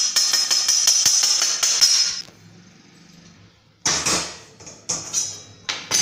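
Popped amaranth (rajgira) grains poured from a wok onto a steel plate: a dense rattling patter for about two seconds. A few sharp metal knocks follow near the end.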